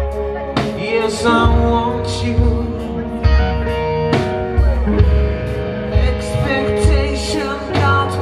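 A live rock 'n' roll band playing: electric guitars over bass and a steady drum beat.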